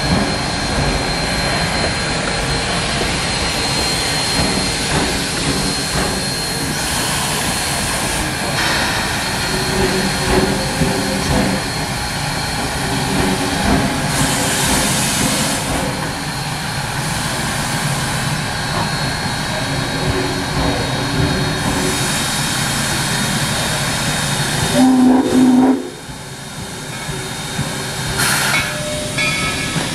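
Steam locomotives working close by: a steady hiss of steam and the rumble and clank of a train rolling slowly past on the adjacent track. There is a short loud low tone about 25 seconds in, after which the sound is quieter.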